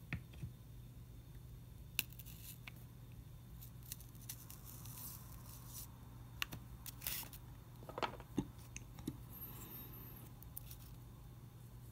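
Scattered soft clicks and crackles of fingers pressing paper strips and pins into a styrofoam spreading board, the sharpest about two seconds in and a cluster of them between six and eight and a half seconds in, over a faint steady hum.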